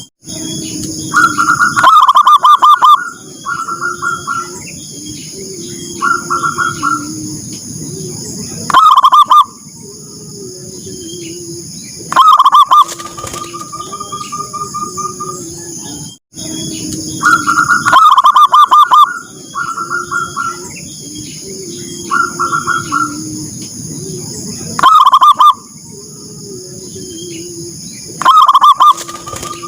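Zebra doves (perkutut) cooing: repeated short phrases of rapid rolling notes, with lower, softer coos between them. A steady high-pitched buzz runs underneath.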